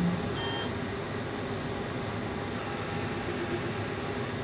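LPKF Protomat S62 PCB milling machine running with a steady drone as its tool head works at the tool rack, mid tool change. A short, high beep-like tone sounds about half a second in.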